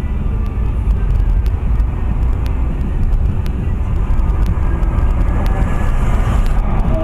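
Steady low road and engine rumble inside a moving car's cabin in slow traffic.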